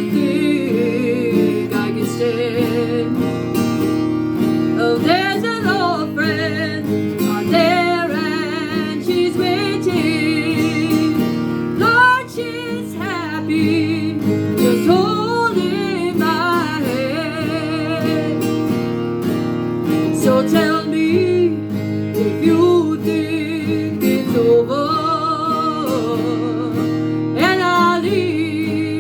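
A country ballad being sung: a voice with a strong vibrato over a steady guitar accompaniment.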